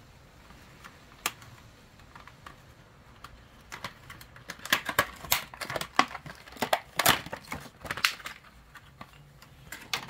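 Plastic packaging of a set of new sintered brake pads being handled and pulled open: one click about a second in, then a run of sharp crinkling crackles and clicks in the second half.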